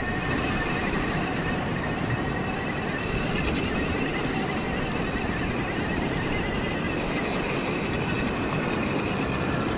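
Bafang BBS-HD mid-drive e-bike motor running steadily under way, a faint high whine over a continuous rush of riding noise.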